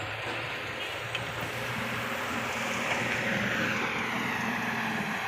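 A motor vehicle's engine running, over a steady rushing noise, growing a little louder about two seconds in.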